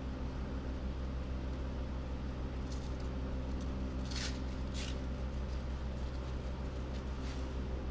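Steady low hum of the room's machinery, with a few brief rustles of the ballistic vest's fabric being handled; the two clearest come about four and five seconds in.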